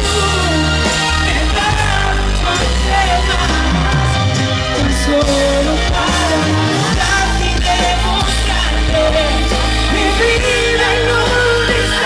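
Live band playing a song with a man singing the lead vocal, over drum kit, electric bass and guitars, heard through the concert PA.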